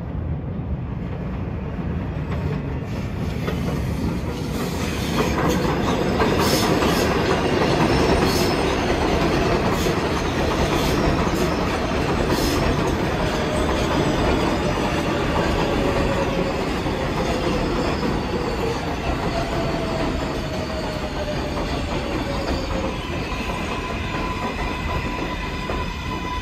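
R188 subway train on the elevated 7 line running through the station. Its wheels clack over the rail joints, loudest about eight seconds in, and a whine slowly falls in pitch in the second half.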